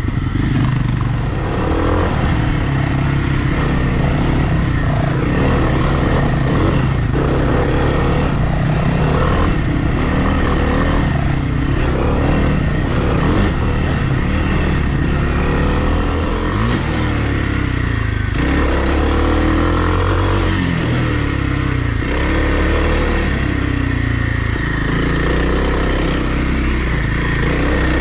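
Dirt bike engine of a 2020 Kawasaki KLX300R, a single-cylinder four-stroke, running continuously and revving up and down again and again under changing throttle.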